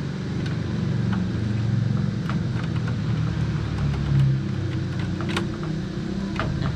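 A steady low rumble, with a few sharp clicks over it.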